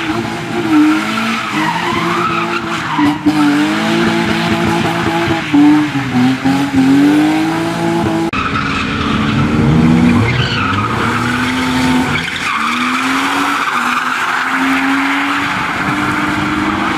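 BMW 3 Series saloon engines revving up and down hard as the cars slide and spin their tyres in clouds of smoke, with tyre squeal over the engine. About eight seconds in there is an abrupt change to a second car drifting, its revs rising and falling.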